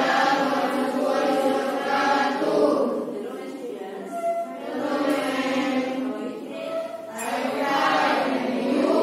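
A class of students reciting a prayer together in unison, a chant-like group recitation. It runs in long phrases with brief pauses between them.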